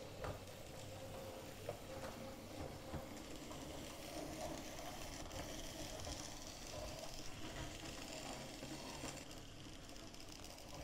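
Faint whirr of an OO gauge model tank locomotive's small electric motor and gears as it runs along the track, with its pitch wandering slightly as the speed changes. A few light clicks, mostly in the first two seconds, come from wheels and stock running over rail joints and points.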